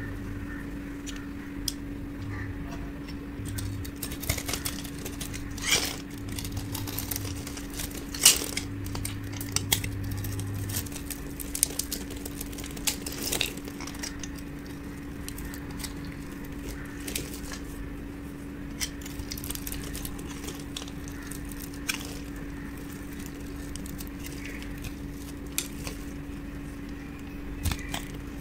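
A utility-knife blade cutting and shaving dried bar soap, with crisp crackles and snaps as curls and small cubes break off; the loudest snaps come about 5, 8 and 13 seconds in. A steady low hum runs underneath.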